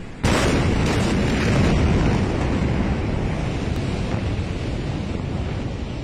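Blast of the 2020 Beirut port explosion reaching the microphone: a sudden loud boom about a quarter second in, then a long low rumble that fades only slowly.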